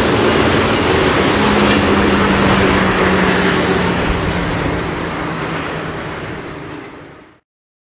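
A train rolling past with a steady engine hum over the noise of its running; the sound fades over its last couple of seconds and then cuts off abruptly.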